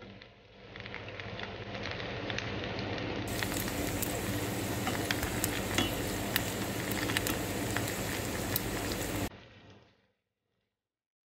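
Sambousek pastries deep-frying in a pan of hot oil: steady sizzling full of crackles and pops, building over the first second and cutting off sharply near the end.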